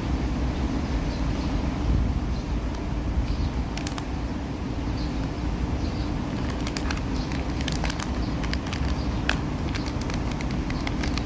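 Steady low rumble of traffic, with the plastic wrapper of an ice cream sandwich crinkling in the hands in scattered sharp clicks, most of them in the second half.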